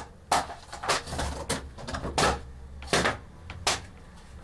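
About six short, sharp knocks at an even pace, roughly one every two-thirds of a second, over a low steady hum.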